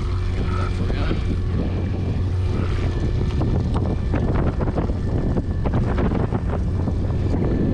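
Boat motor running steadily at trolling speed, a low hum, with wind buffeting the microphone.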